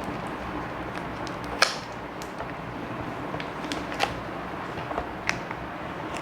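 A few separate sharp clicks and taps, roughly a second apart, over steady background noise, from a Surface Go 3 tablet and its Surface keyboard being handled.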